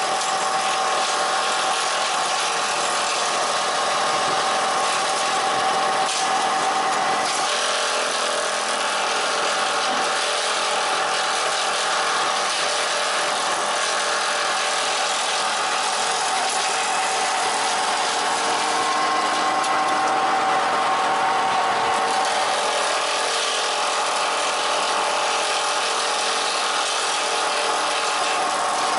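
Homemade wood-processing machine's electric motors running steadily, with a steady mechanical whine.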